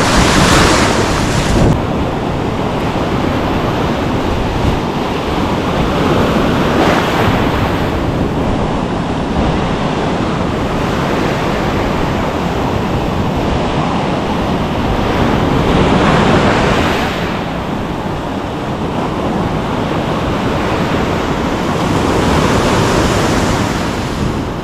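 Ocean surf breaking and washing up the beach, with wind buffeting the microphone. The wash swells loudest about a second in, around seven seconds, around sixteen seconds and again near the end.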